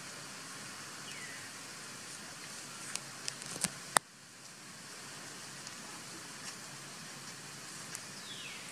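Steady outdoor forest ambience, an even hiss, with a few sharp clicks about three to four seconds in, the last and loudest followed by a brief drop in the background. A faint, short, falling chirp sounds about a second in and again near the end.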